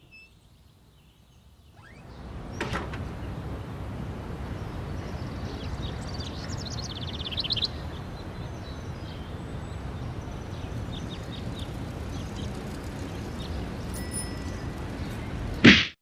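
Steady outdoor background noise with birds chirping, including a quick run of chirps a few seconds in. There is a click about two and a half seconds in and a loud thump just before the end.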